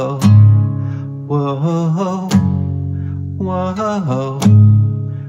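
Acoustic guitar strummed under a man's voice singing long, wavering 'whoa' notes, with a hard chord stroke about every two seconds.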